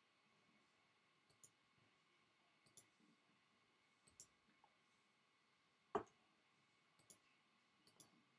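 Near silence with a few faint computer mouse clicks, and one sharper, louder click about six seconds in.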